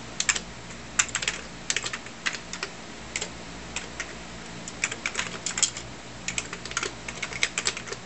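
Typing on a computer keyboard: quick runs of key clicks with short pauses between them, as a shell command is entered line by line.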